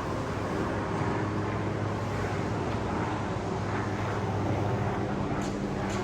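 Steady motor drone with a low hum, over an even wash of surf noise. Two brief high-pitched chirps near the end.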